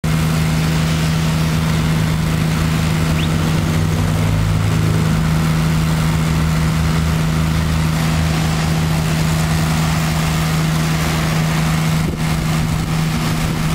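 The 28 HP Kubota water-cooled diesel engine of a trailer-mounted Alkota hot-water pressure washer running steadily under load as a low hum, over the steady hiss of high-pressure water from a rotary surface cleaner on pavement.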